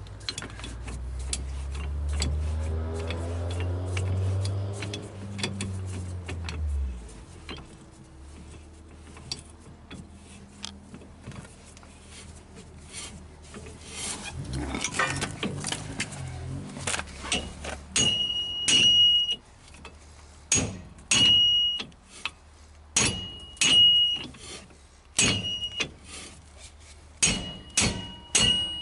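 Hammer blows on a hub puller clamped to a rear axle hub, each strike ringing the steel: about ten sharp strikes in the last eleven seconds, trying to pop the hub off its keyed axle. Before that, scattered clicks of the puller being handled, and a vehicle engine that rises and fades away in the first seven seconds.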